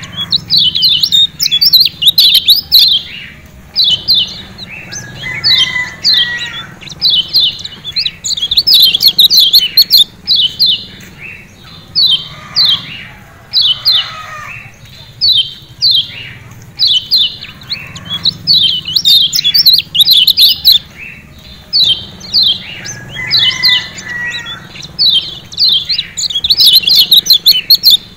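Kecial kuning (yellow white-eye, a Zosterops) giving its 'ciak ciak' call: short, sharp, high chirps in quick clusters of several notes, repeated again and again with brief pauses.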